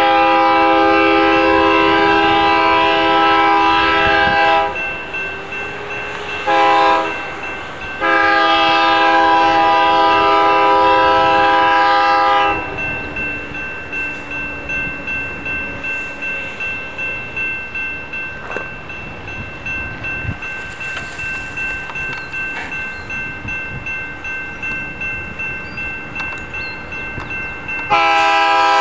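Diesel locomotive's multi-chime air horn sounding the grade-crossing signal: a long blast, a short one and another long one, with a fresh long blast starting near the end. Between the blasts a crossing warning bell rings steadily, about twice a second.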